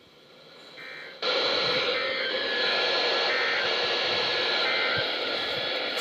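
Radio receiver static: a steady hiss that starts abruptly about a second in, with faint steady tones under it.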